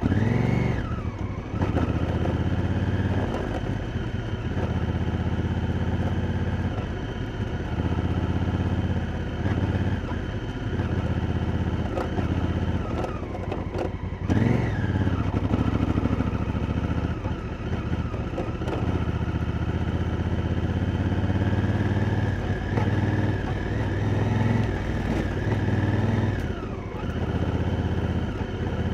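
Honda Africa Twin's parallel-twin engine running under way on a dirt track, heard close up. The note holds fairly steady, with sharp rises and drops in revs at the start, about halfway through, and near the end.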